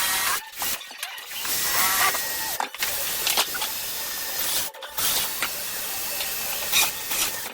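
Power tool running in several separate stretches, each cutting off abruptly.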